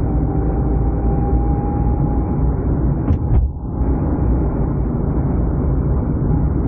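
Steady engine and road-noise rumble of a car being driven, heard from inside the cabin. A couple of clicks and a brief drop in the noise come a little over three seconds in.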